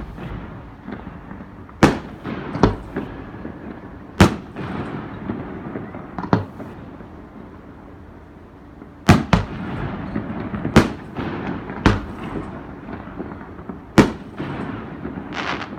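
Aerial fireworks bursting: about eleven sharp bangs at uneven intervals, some in quick pairs, each trailing off in an echo.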